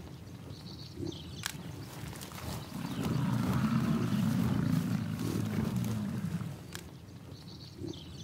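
American bison bull bellowing: one low, drawn-out roar lasting about four seconds, starting about three seconds in. Two short sharp clicks come before and after it.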